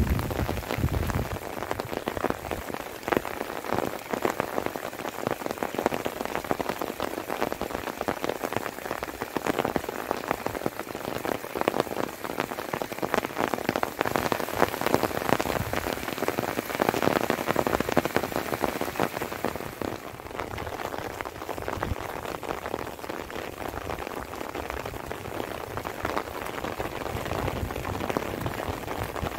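Light rain falling, a steady dense patter of drops, easing slightly about two-thirds of the way through.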